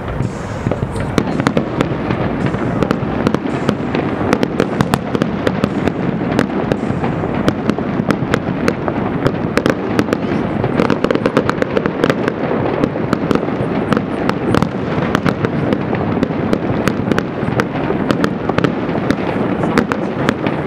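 Fireworks display: a rapid, continuous run of sharp bangs and crackles from aerial shells bursting overhead.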